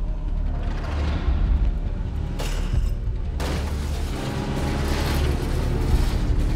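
Action-film soundtrack: orchestral score over a deep, steady rumble, with two long rushing swells of noise.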